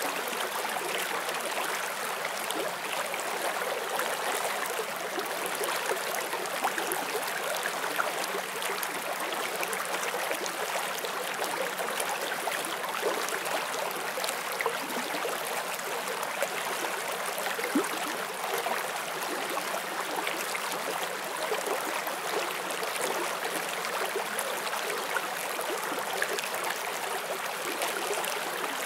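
Shallow forest stream running steadily over stones, a continuous rushing with small gurgles and splashes.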